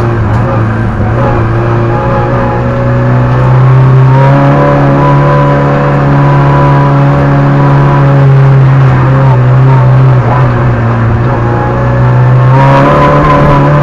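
Peugeot 106 competition car's engine running hard under acceleration, heard from inside the cabin. The revs are held fairly steady, rise and get louder about four seconds in, ease off briefly, then climb again near the end.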